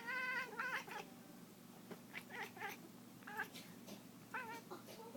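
A domestic cat making weird warbling calls while chasing a laser pointer dot: one long call with a quavering pitch in the first second, then a string of short, clipped calls.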